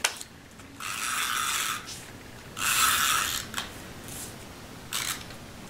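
Adhesive tape runner drawn along a paper strip in two passes, each about a second long with a raspy ratcheting whir, followed by a few light clicks.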